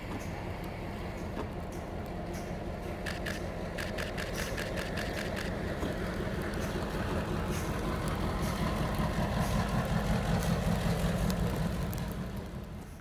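Diesel locomotive pushing a snow plow car along the track, its engine rumbling steadily and growing louder as the train draws near, loudest about ten seconds in, then fading. A quick run of clicks comes a few seconds in.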